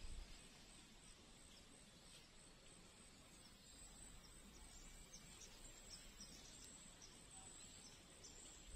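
Near silence: faint outdoor ambience with a few short, faint high chirps.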